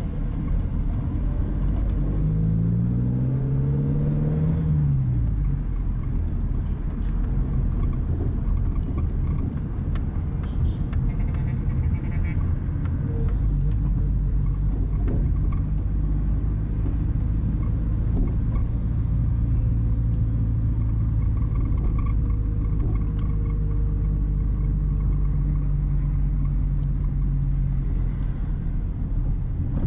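Car being driven, with a steady low road rumble. A couple of seconds in, the engine note climbs for a few seconds and then falls away about four to five seconds in; later it holds a steady hum.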